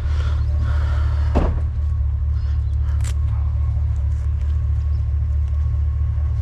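Vehicle engine idling with a steady low rumble, with a short knock about a second and a half in and a sharper click about three seconds in.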